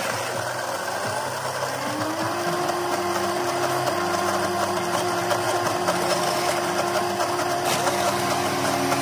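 Countertop blender motor spinning up about two seconds in, rising in pitch, then running steadily.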